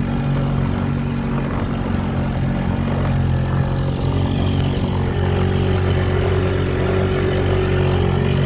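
Small outboard motor on a skiff running steadily at a constant pitch.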